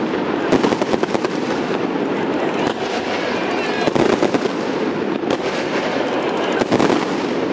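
Aerial fireworks display going off in a continuous barrage of rapid bangs and crackles, with louder reports about half a second in, around four seconds and near seven seconds.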